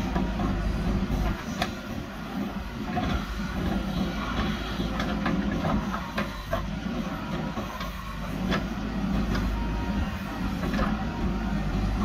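JCB backhoe loader's diesel engine running while the backhoe arm digs earth. Scattered sharp knocks and clanks from the bucket working the soil come through over the steady engine hum.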